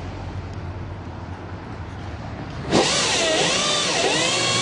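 KillaCycle electric drag motorcycle doing a burnout: about two-thirds of the way in, a sudden loud, wavering high squeal starts and keeps going as the rear tyre spins. A low steady hum comes before it.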